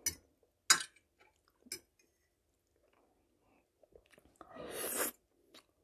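Close-up eating sounds of spaghetti with fried mushrooms. There are a few short clicks in the first two seconds, faint chewing, and a noisy half-second slurp about four and a half seconds in as a forkful of noodles goes into the mouth.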